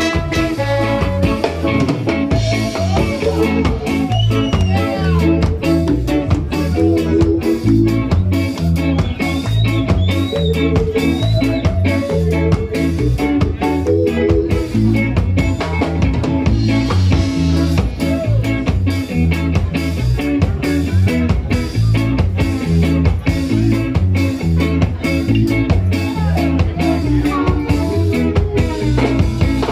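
A live ska band playing: drum kit, bass and electric guitar keep a steady upbeat rhythm under pitched instrument lines.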